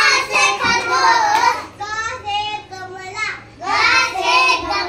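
A little girl's high voice in sing-song chanting, in two loud phrases with a quieter stretch between them.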